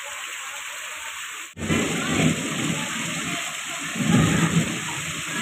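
Heavy rain falling and water running, a steady hiss. About a second and a half in it breaks off sharply and comes back louder, now with a deep, uneven rumble underneath.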